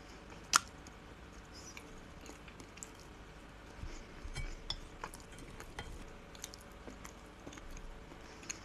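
Quiet eating sounds: a fork clicking lightly against a ceramic plate a few times, the sharpest click about half a second in, with soft chewing.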